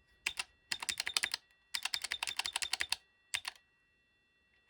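Solitaire 1000B payphone pulse-dialling from its keypad: several quick trains of sharp clicks, roughly ten a second, one run after another. A faint steady high whine sits underneath.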